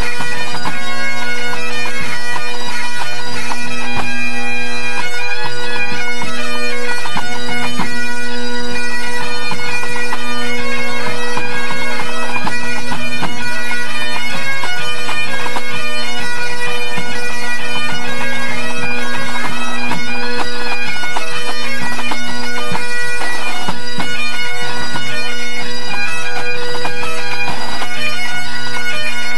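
A full pipe band's Great Highland bagpipes playing together in their pre-competition tune-up: chanters carry a changing melody over steady, unbroken drones.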